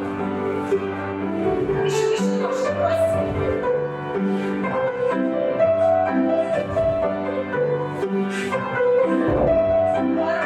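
Instrumental piano music playing a steady melody with chords.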